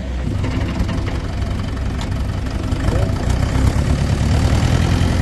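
Diesel engine of heavy machinery idling steadily, with a fine rapid low pulsing; it gets a little louder about halfway through.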